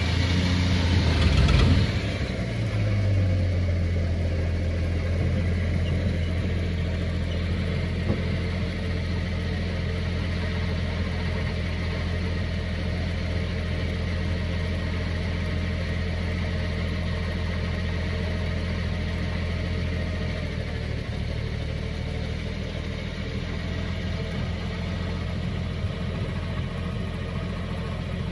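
1968 Plymouth Valiant 100's engine revved briefly about a second in, then settling into a steady idle.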